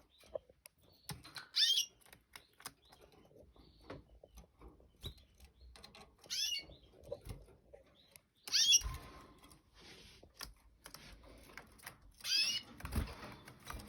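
Canaries giving a few short chirps, with light clicks and rustling in between.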